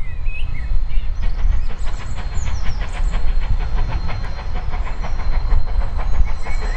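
Steam locomotive working hard with a train, its exhaust beats coming quickly and evenly at about five a second over a steady low rumble.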